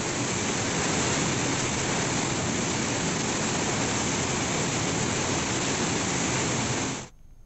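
A steady, even rush of water, like heavy rain or floodwater pouring, cutting off abruptly shortly before the end.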